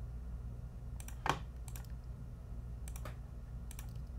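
Scattered clicks of a computer mouse and keyboard keys, a few at a time with pauses between, one louder about a second in, over a low steady hum.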